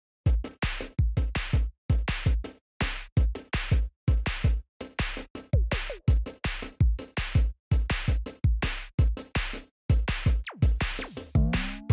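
Electronic music with a steady drum-machine beat: a deep kick drum and sharp percussion hits about twice a second, with a falling synth sweep near the end.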